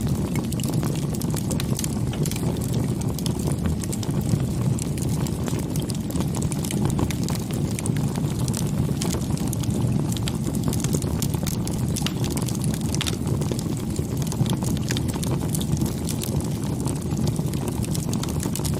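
Wood fire burning, with frequent sharp crackles and pops over a steady low rumble.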